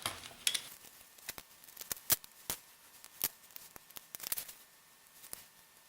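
Irregular light clicks and taps of small plastic and metal parts being handled while an old portable player is taken apart.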